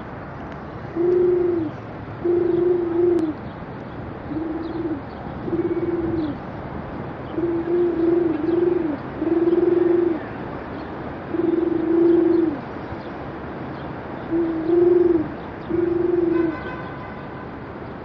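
A person imitating pigeon coos with the voice: about ten short, low, steady hoots, some run together in pairs, repeated with gaps of a second or so, over steady street background noise.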